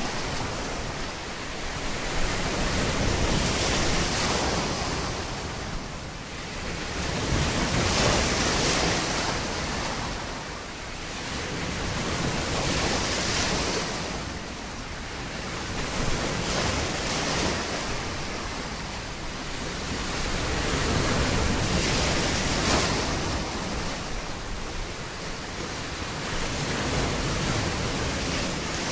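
Sea surf washing in, a continuous rush that swells and eases every several seconds.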